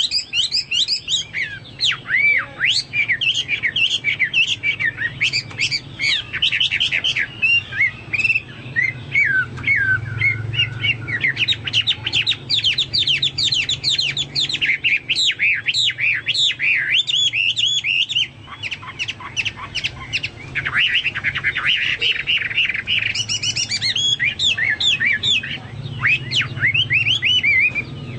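Chinese hwamei singing a long, rapid, varied song of quick whistled notes, slurs and trills, in the manner of a cucak Papua or cucak mas, with a brief pause about two-thirds of the way through. A low steady hum runs underneath.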